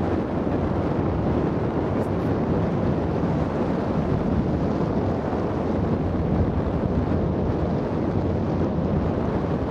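Steady wind rushing and buffeting across the microphone during a parasail flight high over the sea.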